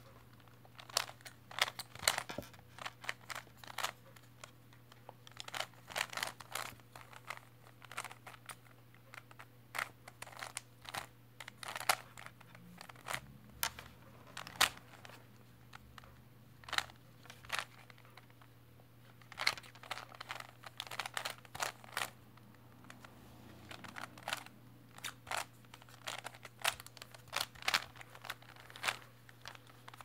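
3x3 Rubik's cube being turned by hand: quick bursts of plastic clicking and clacking as the layers are twisted, with short pauses between the bursts.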